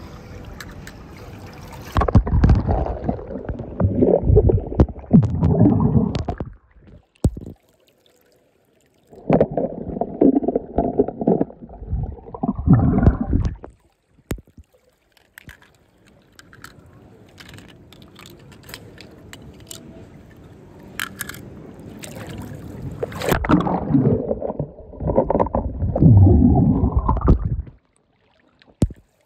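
Pool water sloshing and gurgling in three loud spells of a few seconds each, starting about two, nine and twenty-three seconds in, some ending in a rising gurgle, with a few light clicks in the quieter stretches between.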